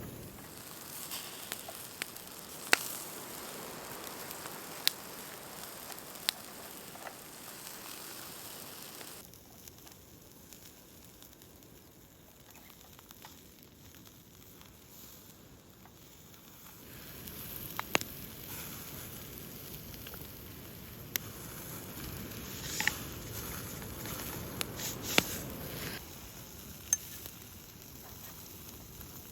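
Wood campfire crackling and popping over a steady hiss, with sharp pops scattered throughout; it goes quieter for a stretch about a third of the way in, then picks up again.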